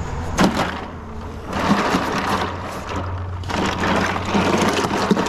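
Ice cubes crunching and clattering in a plastic cooler as a large fish is pushed down into them, in two spells of rattling. A sharp knock comes about half a second in.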